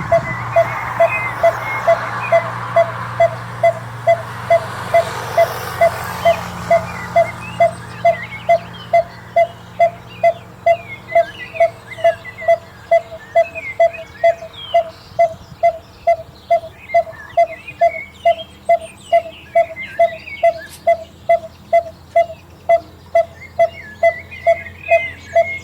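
Coppersmith barbet calling: one repeated 'tuk' note on a single pitch, evenly about two a second, on and on without a break.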